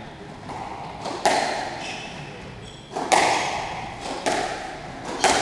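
Squash rally: the ball cracks off rackets and walls about once a second, each hit ringing briefly in the enclosed court. Short squeaks of players' shoes on the wooden floor come between the hits.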